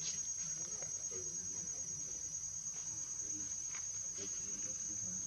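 Steady, high-pitched drone of forest insects, with a few light clicks over it.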